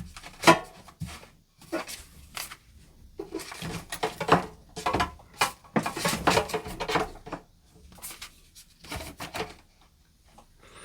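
Trading cards and their foil and cardboard packaging being handled: a run of irregular rustles, taps and clicks that thins out near the end.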